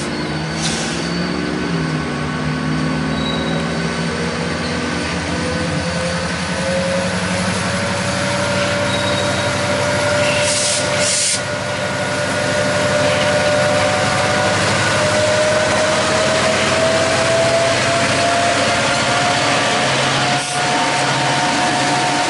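Canadian Pacific diesel locomotives passing slowly, their engines running with a steady low drone and a whine that climbs slowly in pitch. Two short hisses come about ten seconds in.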